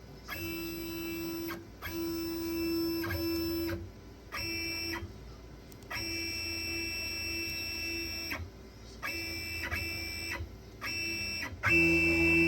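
Servo motors driving the ball screws of a ProverXL 4030 CNC router, whining with a steady pitch through a series of separate axis moves that each start and stop abruptly. The last and loudest move begins near the end.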